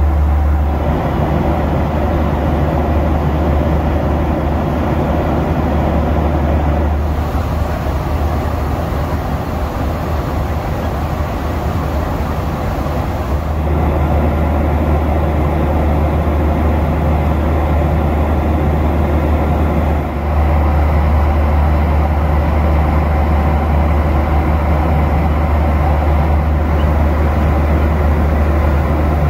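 Steady cabin noise of a Boeing 737-800 in cruise: an even rushing drone of airflow and engines, heaviest in the low end, shifting slightly in level a few times.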